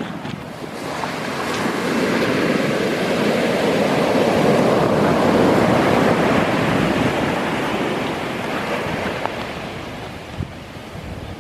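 Large sea waves breaking on the shore. The surf swells up over a couple of seconds, is loudest about halfway through, then dies away as the water washes back.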